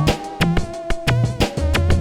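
Electronic music: a drum-machine beat with bass and synthesizer notes.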